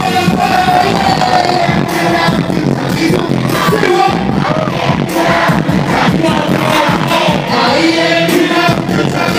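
Pop music played live at a concert, a singer's voice over a steady beat.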